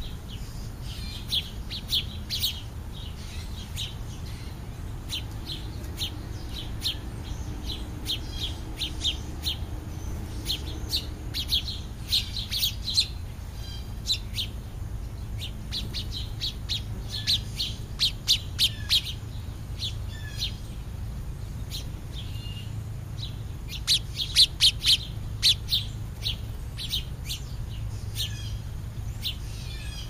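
House sparrows chirping, short chirps in quick runs throughout, the loudest run about three-quarters of the way through, over a steady low rumble.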